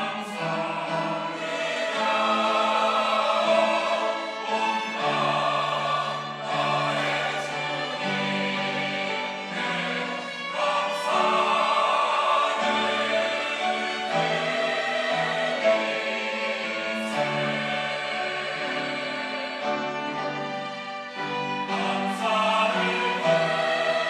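Church choir singing an anthem in sustained chords that change every second or two.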